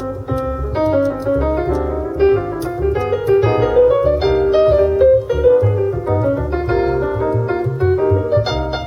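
Piano-led trio music with a strong bass line, played through a Mercedes C-Class W205's Burmester surround sound system in the car's cabin.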